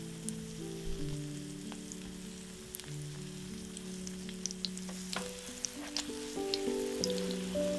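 Oil sizzling and crackling with scattered pops under zucchini batter patties shallow-frying in a nonstick pan over medium heat. About five seconds in, a spatula is slid under a patty to flip it.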